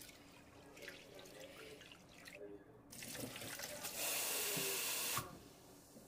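Kitchen tap running into a sink: the water builds up and runs at full stream for about a second before being shut off abruptly. Light clicks and clinks come before it.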